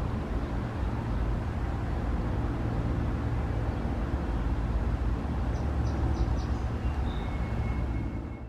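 Steady low rumble with hiss, like traffic or vehicle noise in an outdoor recording, cutting off abruptly at the end.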